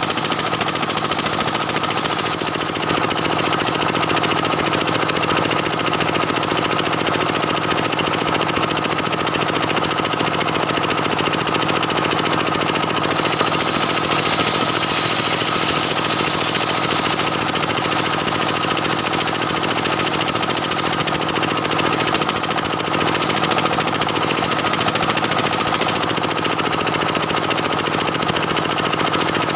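Stihl 070 two-stroke chainsaw running steadily under load, ripping lengthwise through a dense jackfruit-wood beam. The cutting hiss grows brighter for a few seconds in the middle.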